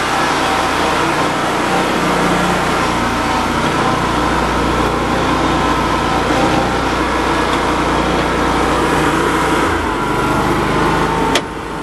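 Riding lawn mower engine running steadily soon after being started, set at full throttle. Near the end there is a sharp click, after which the sound is quieter.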